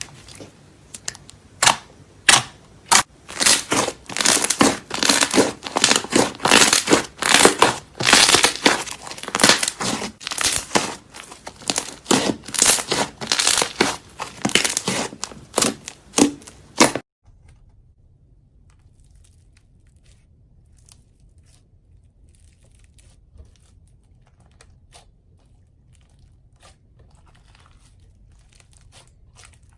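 Slime being pressed and squeezed by hand, giving rapid sharp crackles and pops that cut off abruptly partway through, followed by much fainter soft clicks.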